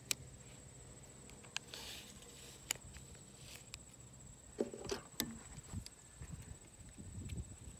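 Masking tape and scissors being handled: a short rasp of tape pulled off the roll about two seconds in, and scattered small clicks and snips. A faint steady hum and a thin high whine run underneath.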